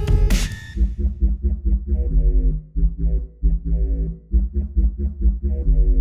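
Electronic music with a heavy, pulsing bass line and short synth notes over it; a denser, noisier passage ends about a second in.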